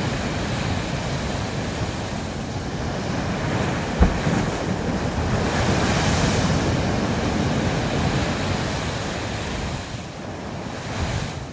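Sea waves surging and crashing into a narrow rock gully, a steady rushing wash of surf that swells and eases, with one short thump about four seconds in.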